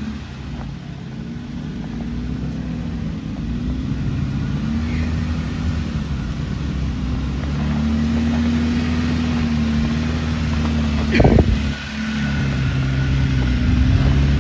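Jeep Wrangler JK Rubicon's engine running at low revs while it crawls over rock ledges, its pitch rising and falling gently with the throttle. A single sharp knock comes about eleven seconds in.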